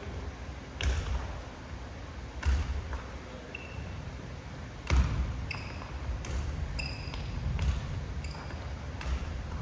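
Badminton rackets striking shuttlecocks in a push drill, about six sharp hits spaced roughly one and a half seconds apart. Short high squeaks of court shoes and dull footfalls come between the hits.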